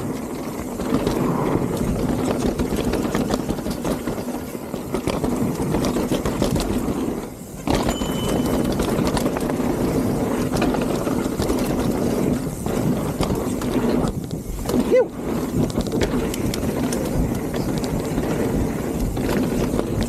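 Mountain bike rolling fast down a dirt singletrack: steady tyre and ride noise over the dirt. The noise drops briefly about seven and a half seconds in.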